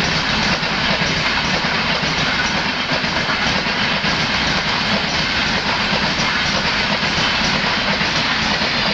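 Train running along the rails: a steady, loud rushing rumble of wheels on track with faint clicking over it.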